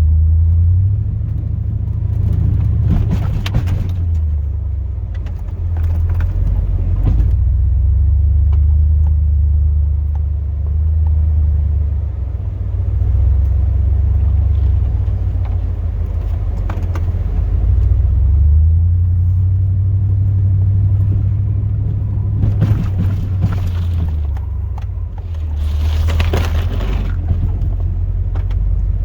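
Low, steady rumble of a 2002 Chevrolet Silverado's 8.1-litre big-block V8 and drivetrain, heard from inside the cab as the truck plows, swelling and easing with the throttle. Several short, sharper noises break in over it.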